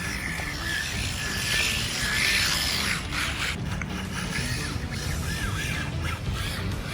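Micro RC buggy's small electric motor whining as it drives, its pitch rising and falling with the throttle, with scattered ticks and clicks in the second half.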